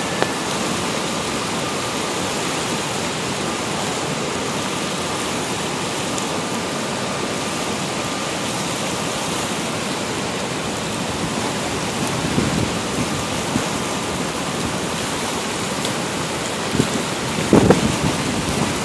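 Steady rushing of fast river water churning through the whitewater below a dam spillway, running at high flow. A few short low thumps come near the end.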